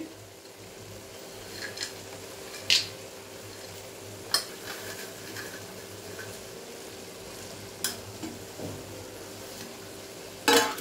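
Carrot halwa cooking in a large aluminium kadai on a gas stove, with a faint steady sizzle and hiss. A few light clicks come as a steel plate of chopped nuts and dry fruit is tipped in, and a brief clatter of metal sounds near the end.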